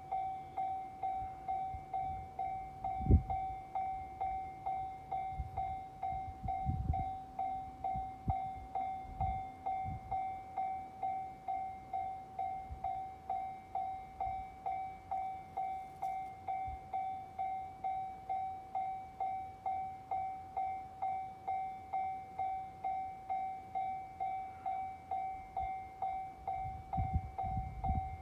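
Japanese level-crossing warning bell ringing, one electronic tone repeating evenly a little under two times a second. A single low thump sounds about three seconds in, and low rumbling from an approaching train builds near the end.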